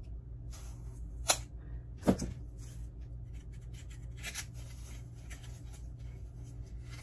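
Two sharp snips of hand clippers cutting an egg's stick shorter, then a faint scratchy rubbing as the stick is pushed into a foam disc.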